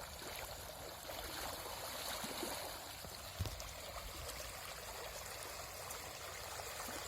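River water flowing steadily, a even rushing wash, with one soft knock about three and a half seconds in.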